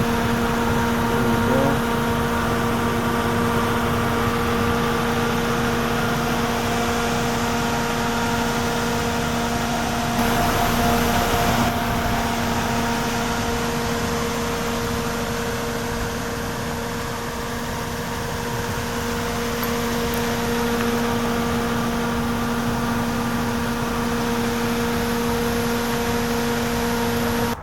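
Steady mechanical hum: a constant droning tone over a hiss.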